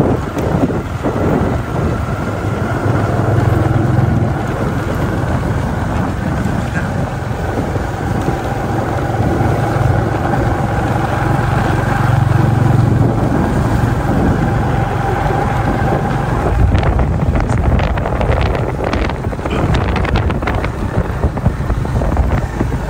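Motorbike engine running steadily while riding over a dirt road, with wind buffeting the microphone. In the last several seconds a run of knocks and rattles comes through as the bike goes over rough ground.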